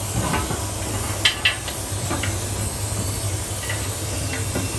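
Gas torch flame hissing steadily as it heats an alloy wheel, over a steady low hum. Two sharp clicks come about a second in.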